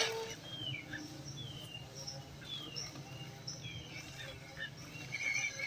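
Birds chirping: a string of short, quick falling notes repeated every second or so over a faint steady low hum.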